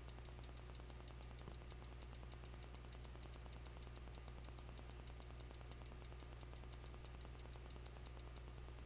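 Faint background noise of a computer screen recording: a steady low hum with a rapid, even ticking on top.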